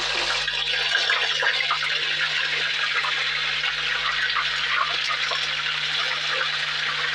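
Ginger-garlic paste frying in hot oil in a kadhai: a steady, dense sizzle.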